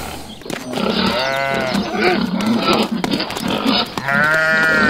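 Farm-animal sound effects: a sheep bleating twice, about a second in and again near the end, with a pig grunting in between.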